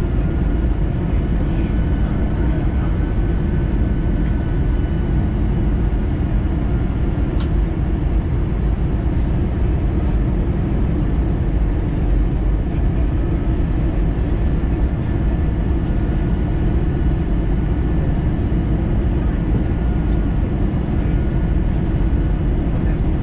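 Airbus A320 cabin noise heard from a window seat over the wing: steady low jet-engine and airflow rumble with faint steady whine tones above it, as the airliner descends for landing.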